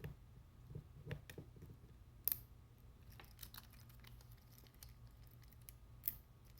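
Lock picks and padlocks being handled: faint small metallic clicks and taps, with two sharper clicks, one about two seconds in and one near the end.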